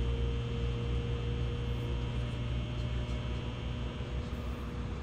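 Running noise of a 700 Series Shinkansen heard inside the passenger cabin: a steady low rumble with a faint steady hum.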